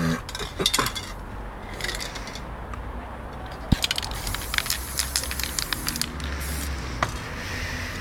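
Aerosol spray-paint can hissing in short sprays, mixed with crinkling and clicking handling noises over the wet painting. A dense run of crackling clicks comes in the middle, and a longer hiss near the end.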